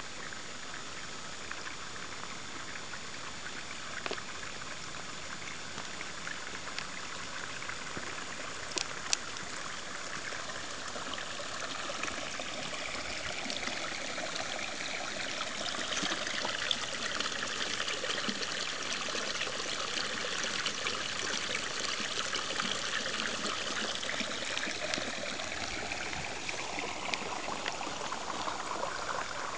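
Water pouring steadily from an outlet pipe into a shallow pool, splashing and trickling; it grows louder from about a third of the way in. Two sharp clicks about nine seconds in.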